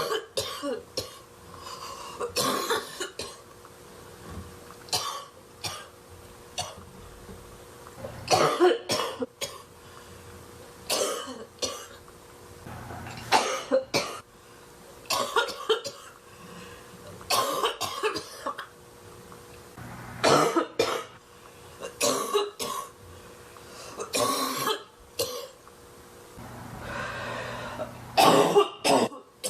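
A woman coughing hard in repeated fits from inhaling bong smoke, with clusters of harsh coughs every two to three seconds and some throat clearing.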